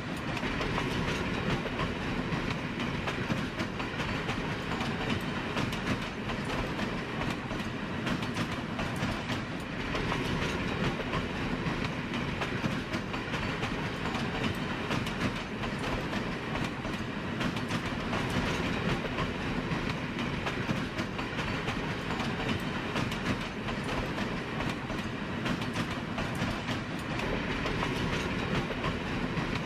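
A train running along the track: a steady rumble and rattle of wheels on rails that carries on without a break.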